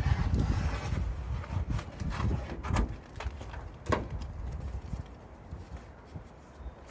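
Scissors cutting and hands working a vinyl van decal and its paper backing: irregular light clicks, knocks and rustles, the sharpest click about four seconds in, getting quieter towards the end.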